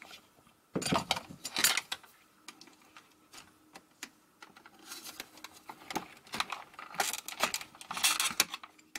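Light clicking and rattling of hard plastic parts as a toy RC truck's front steering housing is handled and worked apart with a small screwdriver. The clicks come in a short cluster about a second in and a longer run from about five to eight and a half seconds in.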